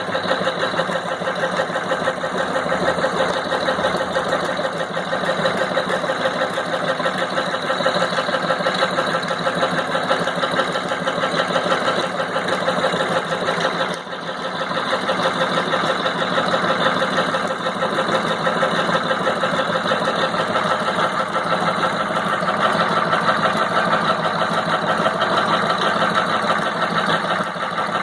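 Sewing machine running steadily as it stitches tarpaulin canvas, a fast even mechanical chatter, with a brief dip about halfway through.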